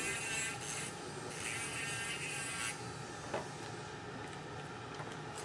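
Dental lab handpiece with a small grinding stone running with a steady high whine, grinding the edge of a plaster dental model. The grinding hiss drops away about two and a half seconds in, leaving the fainter whine, with a light knock shortly after.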